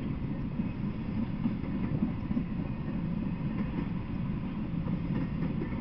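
Freight train of empty flatcars rolling past, a steady low rumble and clatter of wheels on the rails.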